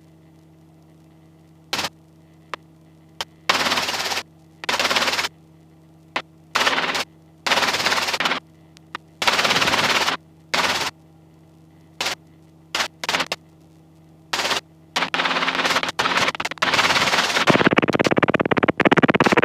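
Robinson R22 helicopter intercom audio cutting in and out: short hard-edged bursts of rotor and wind noise from the headset microphones as the voice-activated squelch opens and shuts, over a faint steady engine and rotor hum. The bursts come a dozen or more times, then the noise runs almost unbroken near the end.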